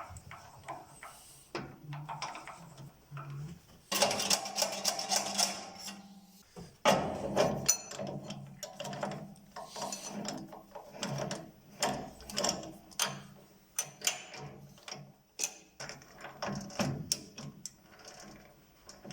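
Woodworking shop handling sounds: a run of irregular clicks and knocks of tools and wood, with two longer bursts of scraping noise, about four and seven seconds in, over a faint steady hum.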